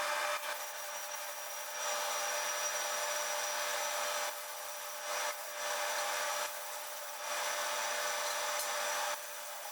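Small electric power tool running with a steady high whine, its rasping noise swelling and easing in long strokes as it is worked against a surface, as in sanding or grinding off old paint and rust.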